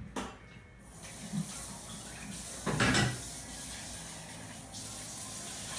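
Running water hissing steadily, setting in about a second in, with a brief louder noise about three seconds in.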